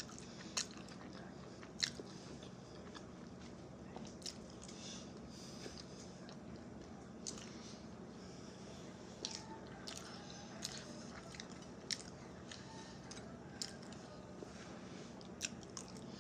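A person chewing food close to the microphone: faint wet mouth and chewing sounds, with about a dozen short, sharp clicks scattered through.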